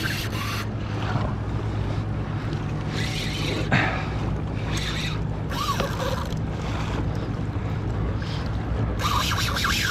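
Water rushing along a kayak hull and wind on the microphone as a hooked jack crevalle tows the kayak. Over it come short bursts of a Shimano Stradic 4000 spinning reel's drag giving line to the running fish, the longest starting near the end.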